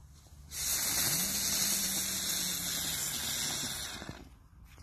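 Small 'Tolle Biene' youth firework burning with a loud, steady hiss that starts about half a second in and dies away after about three and a half seconds.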